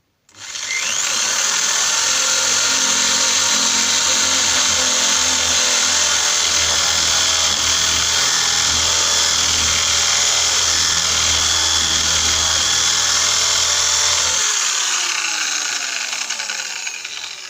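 Electric drill with a 23mm bit boring the hole for a deadlock's bolt into a door. The motor starts suddenly, runs steadily under load, then is released about three-quarters of the way in and spins down, falling in pitch.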